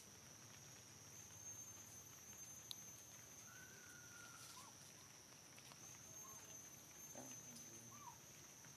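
Faint outdoor ambience: a steady high-pitched insect drone, with several faint short chirps from about three seconds in.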